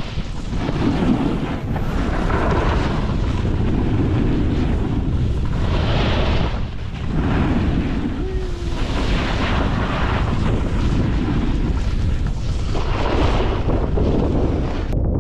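Wind buffeting the microphone of a moving camera during a snowboard run, with the scraping hiss of board edges on packed snow swelling about every three to four seconds.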